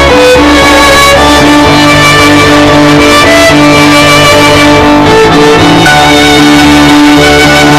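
Instrumental music led by guitar with plucked and bowed strings, over a bass line that shifts every second or so.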